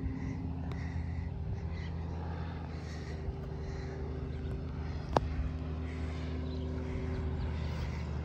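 Light single-engine propeller airplane running steadily as it flies a low pass, its engine drone holding a nearly even pitch. One sharp click about five seconds in.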